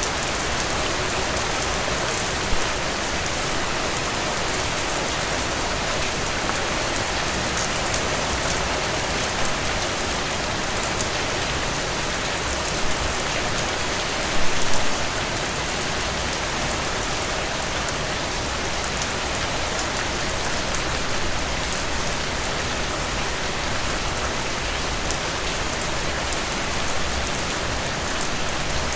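Steady rainfall: an even hiss with many separate drop hits, holding level throughout, with one brief louder moment about halfway through.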